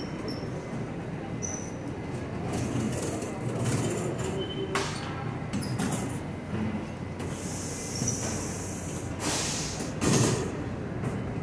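New York City subway trains running through an underground station: a steady rumble with rattles and clanks. About seven seconds in comes a hiss of air lasting a couple of seconds.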